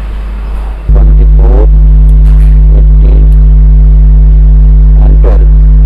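Elak C148 battery charger's mains transformer humming loudly and steadily. The hum starts abruptly about a second in, as the charger begins pushing current into a lead-acid bike battery.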